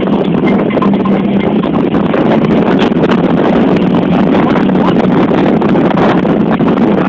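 Vehicle driving over sand, its engine running steadily under loud wind buffeting the microphone.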